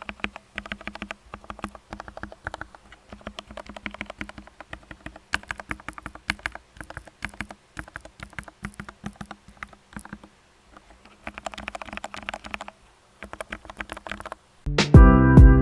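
Typing on a Tecware B68 65% mechanical keyboard with Gateron Black linear switches: quick runs of keystroke clacks with short pauses. Loud music starts abruptly about a second before the end.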